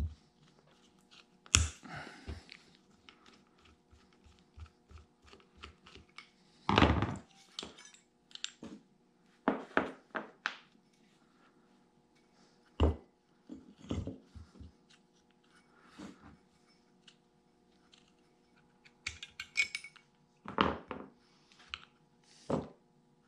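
Small metal parts of a Farmall H distributor clinking and knocking against the distributor housing and the workbench as they are taken off, handled and set down: irregular single clicks and clunks with pauses between them.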